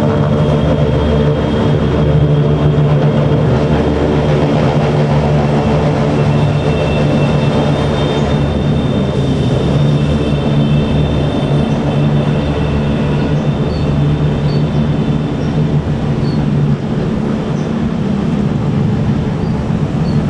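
Diesel bus engine running steadily close by, a loud, even low drone.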